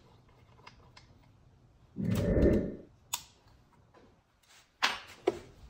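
Metal engine parts handled while a recoil pull-start housing is fitted onto a small trike engine: a dull clunk about two seconds in, a single click a second later, then a few sharp clicks and knocks near the end.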